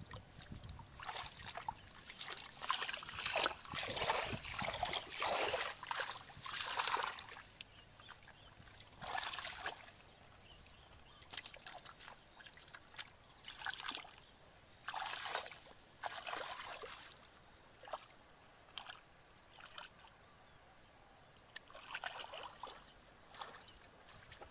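Shallow muddy water splashing and sloshing in irregular bursts as a person wades through it and gropes in it by hand for fish. The splashes come thick and fast for the first several seconds, then more sparsely, with a short lull shortly before the end.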